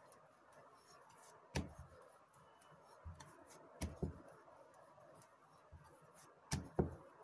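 Wooden rolling pin working a stiff spinach dough on a wooden rolling board: quiet rolling with a few light wooden knocks as the pin bumps the board, twice in quick pairs.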